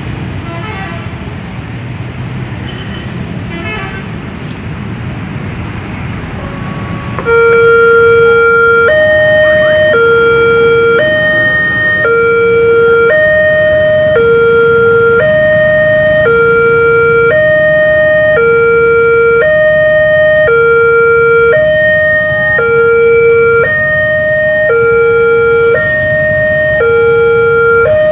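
Railway level-crossing warning alarm sounding as a train approaches and the barriers come down. It is an electronic two-tone signal, a lower and a higher tone alternating about once a second. It starts loudly about seven seconds in, over the noise of motorcycle and road traffic.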